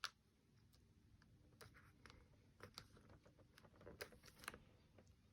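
Near silence with faint clicks and light rustles of paper card and small craft pieces being handled, a sharp click at the very start and a few small taps later on.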